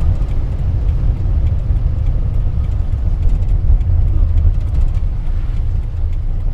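A 1984 Daihatsu Hijet 1000 driving along at a steady pace, heard from inside the cab: a loud, steady low rumble of engine and road noise.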